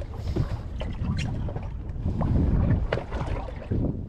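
Water slapping against the hull of a small boat at sea, with wind rumbling on the microphone, swelling about halfway through. Scattered sharp clicks and knocks throughout.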